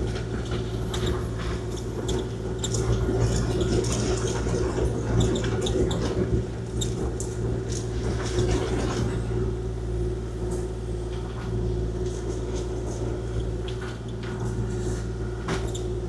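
Kubota KX040-4 mini excavator tracking back and forth over freshly spread rock to compact it. Its diesel engine and hydraulics keep up a steady drone and whine. Scattered clicks and squeaks come from the tracks and the rock under them.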